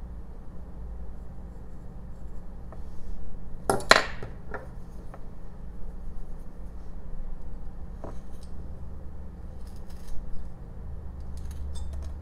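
Carving knife taking short, crisp cuts in a jelutong block, heard as a few scattered snaps. A loud clack of a tool on the bench comes about four seconds in. A steady low hum lies underneath.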